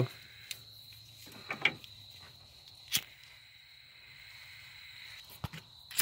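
Crickets chirping in a steady high drone, with a couple of sharp clicks, one about halfway through and one near the end.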